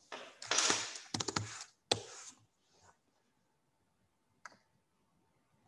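Computer mouse and keyboard clicks: a dense cluster of clicks and rustling over the first two seconds or so, then a single click about four and a half seconds in.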